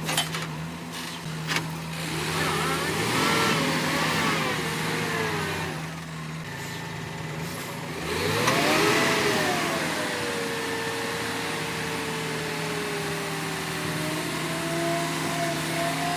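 JCB machine's engine running, rising and falling in pitch twice as it revs under work, with a couple of sharp knocks in the first two seconds.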